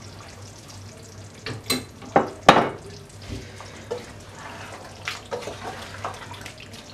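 A wooden spoon stirring thick duck curry in a nonstick pot: wet scraping and sloshing, with a few sharp knocks of the spoon against the pot. The knocks cluster between one and a half and two and a half seconds in, and the last of these is the loudest.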